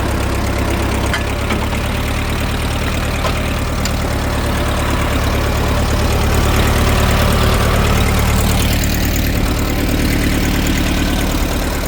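Case 420 backhoe's engine running steadily as the machine is driven along a road, a little louder in the middle.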